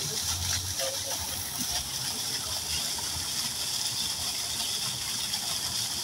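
Koi pond water: a steady hiss of running water, with faint small splashes as the koi stir the surface.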